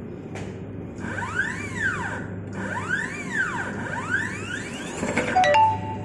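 Wiring-harness taping machine running, its tape-wrapping head motor whining up and then down in pitch in about three cycles over a steady hum. A few sharp clicks come near the end, then a steady higher tone.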